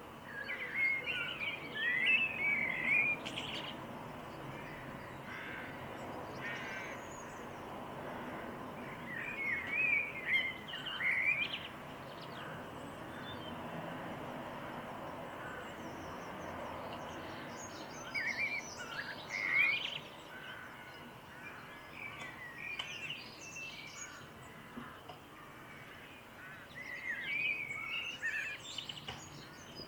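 Garden songbirds singing: a warbling, twittering phrase comes four times, roughly every nine seconds, with scattered higher chirps, over a steady background hum.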